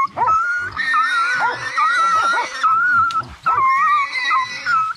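Hunting dogs worrying a downed wild boar: a high, wavering whine held almost without a break, with short yelps and barks under it.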